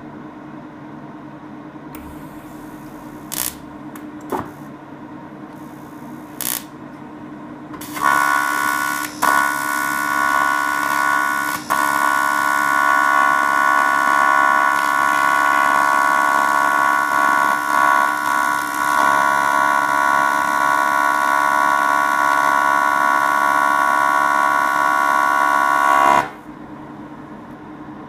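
Grovers TIG (argon-arc) welder's arc: a few brief crackles as the arc is struck, then from about eight seconds in a loud, steady, high-pitched buzz, breaking off for a moment twice before it settles, and cutting off suddenly near the end.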